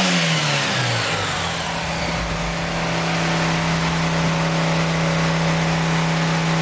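Car engine dropping back from a rev in the first second, then running at a steady speed.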